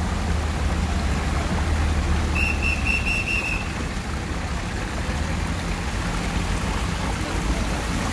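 Steady wash of noise from a flooded street with cars moving through the water, and a low engine hum in the first half. About two and a half seconds in, a high whistle-like tone sounds for about a second in quick short pulses.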